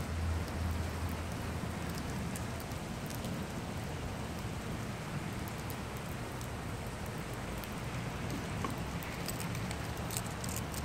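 Steady rain falling on pavement and parked cars, an even hiss with scattered drop ticks, and a low rumble in the first second.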